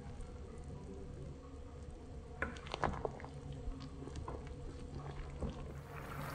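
Wooden spoon stirring dumplings in a pot of hot yogurt sauce: soft squelching with scattered light clicks and knocks of the spoon against the pot, heaviest a few seconds in. A low steady hum runs underneath.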